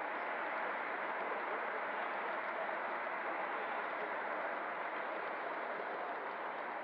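O scale model freight cars rolling past close by on the next track: a steady rumble of metal wheels on the rails, easing slightly near the end.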